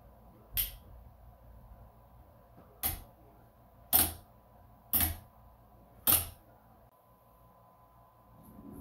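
Five sharp knocks: one, then after about two seconds four more roughly a second apart, the middle ones loudest.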